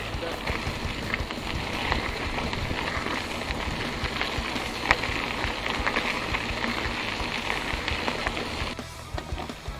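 Mountain bike tyres rolling over a gravel track: a steady hiss of grit under the tyres with scattered small clicks and rattles from the bike, and a low wind rumble on the microphone. The noise eases off about nine seconds in.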